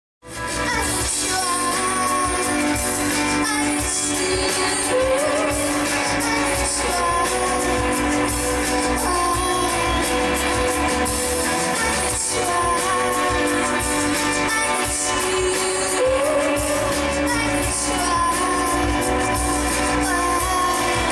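A live band playing with a woman singing a melodic line into a microphone. It starts abruptly out of silence, and the vocal phrase comes back about every four seconds.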